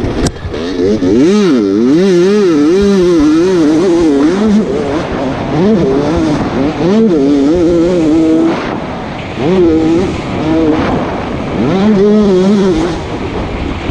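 Two-stroke dirt bike engine heard from on board, revving hard with its pitch rising and falling quickly as the rider works the throttle; it eases off briefly about two-thirds of the way through, then revs up again.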